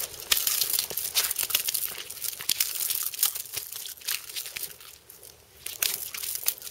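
A freshly caught European sea bass thrashing on a concrete surface: a dense run of rustling slaps and clicks for the first few seconds, then a few separate sharp slaps near the end.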